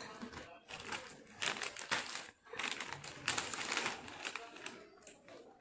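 Crinkling plastic Lay's potato-chip packet being handled as chips are taken out, in two bursts of rustling.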